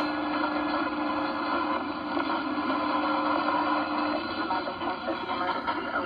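Noisy radio reception of an emergency alert broadcast: steady static hiss with a low steady hum tone that stops about four seconds in, and a voice starting to come through the static near the end.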